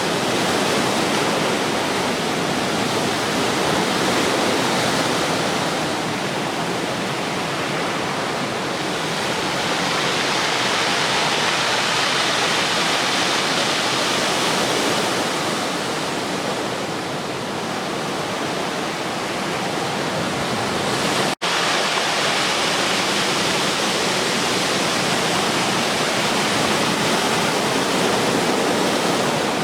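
Ocean surf breaking on a beach under a typhoon swell: a steady rush of water that swells and eases over several seconds at a time. The sound cuts out for an instant about twenty seconds in.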